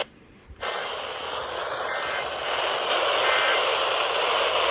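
Loud, even hiss of static-like noise that starts about half a second in after a brief break and holds steady without changing pitch.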